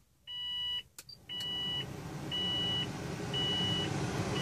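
Subaru Impreza WRX STI engine started with a turbo-back exhaust, heard inside the closed cabin: a dash chime, a click, then the engine catches about a second in and runs steadily. A warning chime beeps about once a second over the running engine.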